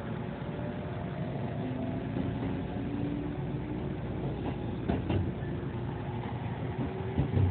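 Kintetsu electric train heard from inside the car while running: a steady rumble of wheels on rail, with a faint motor whine slowly rising in pitch as the train gains speed. A few sharp clacks of the wheels on the track come about five seconds in and again near the end.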